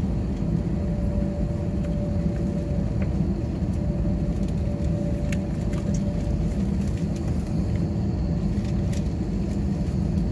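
Steady low rumble and hum of an Airbus A319's engines and airframe heard inside the cabin while the aircraft taxis, with a faint steady tone partway through and a few light clicks.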